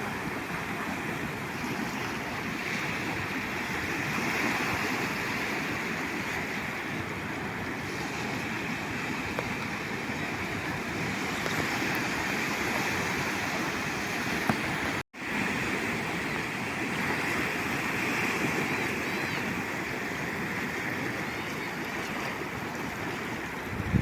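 Calm sea waves washing steadily onto the shore, rising and falling gently in level. The sound cuts out for an instant about two-thirds of the way through.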